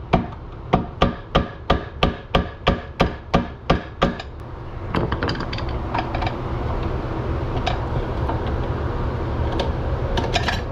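A hammer taps a punch against the Honda 400EX's rear axle bearing carrier, about three strikes a second for some four seconds, turning the eccentric carrier to slacken the drive chain. After that comes a steady metallic rattling and rubbing as the slack roller chain is worked off the rear sprocket.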